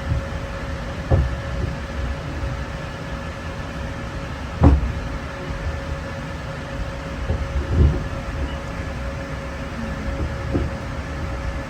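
Steady hum and low rumble inside a GO Transit passenger coach standing at a station platform, broken by a few dull thumps. The loudest thump comes about halfway through, and smaller ones come about a second in and near eight seconds.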